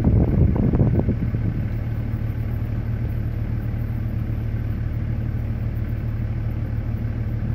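Car driving slowly, heard from inside the car: a steady low rumble of engine and road noise.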